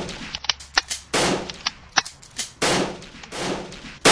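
Gunshot sound effects: a string of loud shots about a second apart, each with a short fading tail, with sharp clicks between them.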